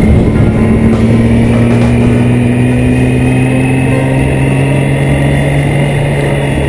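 Motorcycle engine running as the bike rides along, its pitch rising slowly over the first few seconds as it gently gathers speed, then holding steady.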